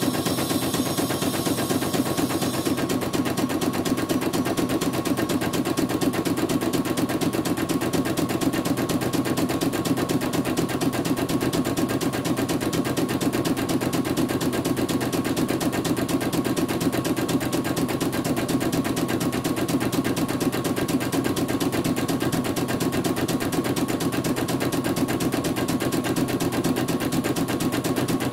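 CNY portable embroidery machine stitching out a design, its needle mechanism running in a rapid, even clatter of stitches.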